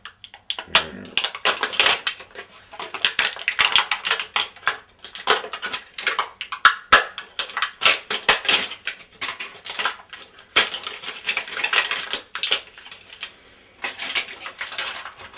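Dense crinkling and rustling handling noise with a few sharp clicks, from toilet install parts (the wax ring and closet bolts) being unpacked and fitted at the floor flange.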